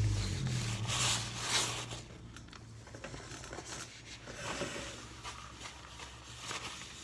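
Light rustling and scattered clicks of hands handling things at close range. A low hum fades out in the first couple of seconds.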